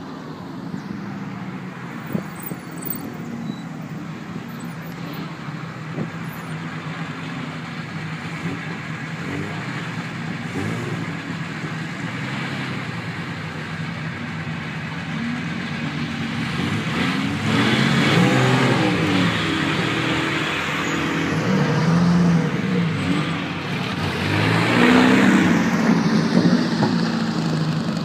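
Vintage sports and racing car engines going past one after another, revving and accelerating over a steady background of engine noise. Three louder passes come about halfway through, about three quarters of the way through and near the end, the last being the loudest.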